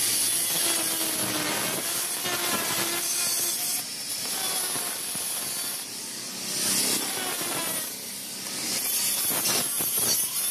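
Handheld angle grinder with a cutting disc cutting through a steel tube, its whine shifting in pitch and level as the disc is pressed into the metal.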